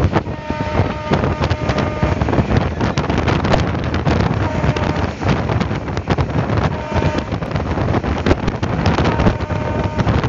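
Moving passenger train heard at an open carriage window: a loud steady rumble of wheels on rails, dense with irregular clacks, and wind rushing past. A faint high whine comes and goes a few times.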